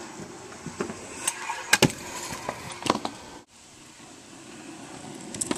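Small hard wheels rolling on pavement: a steady rumble with a few sharp clacks, most of them between about one and a half and three seconds in. It cuts off about three and a half seconds in and a quieter rolling noise builds back up.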